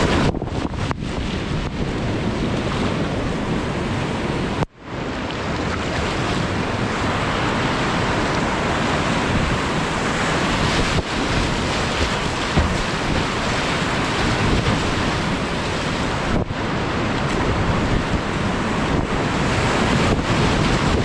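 Whitewater rapids rushing and splashing right around a kayak, heard close on the paddler's camera microphone as a steady, loud roar of water, with a brief sharp dropout about five seconds in.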